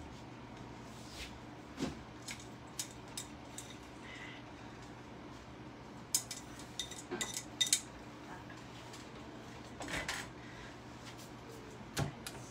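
Scattered light clinks, taps and scrapes of kitchenware as grated Parmesan is brushed off a plate onto a skillet, with a sharper knock near the end, over a faint steady hum.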